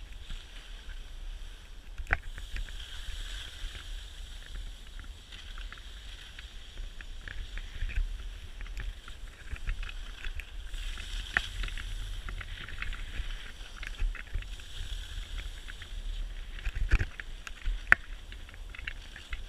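Skis sliding over packed snow with a steady hiss, over a low wind rumble on the camera microphone, with scattered sharp clicks and a couple of louder knocks near the end.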